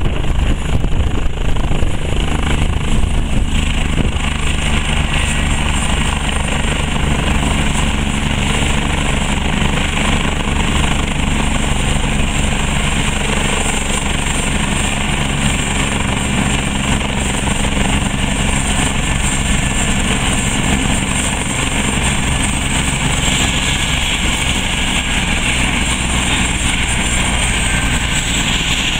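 Eurocopter helicopter running on the ground with its rotor turning. A steady high turbine whine sits over the low beat of the rotor, and the whine falls slightly in pitch in the first few seconds and again near the end.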